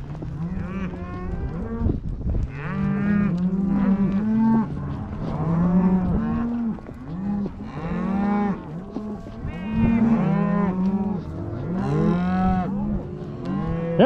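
A herd of beef cows and calves mooing and bawling without a break, many calls overlapping one another.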